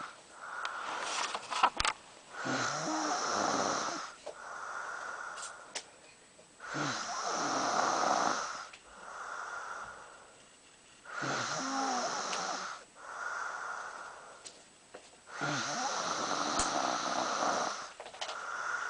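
A sleeping person snoring in a steady rhythm: about four long snores some four seconds apart, each followed by a quieter breath. A sharp click sounds about two seconds in.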